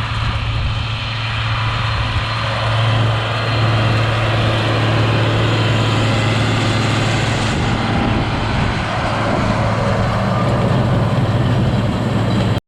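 Diesel farm tractor engine running steadily under load, with a constant low hum. The sound cuts off suddenly near the end.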